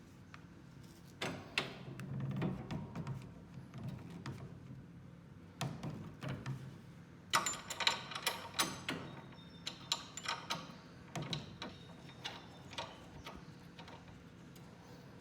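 Scattered knocks and clicks of wood and metal parts being handled, with a quick run of sharp metallic clicks and rattles about seven seconds in.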